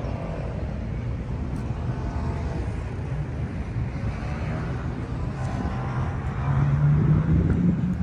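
Steady low rumble of an engine, with a steady hum that grows louder about six and a half seconds in; faint voices underneath.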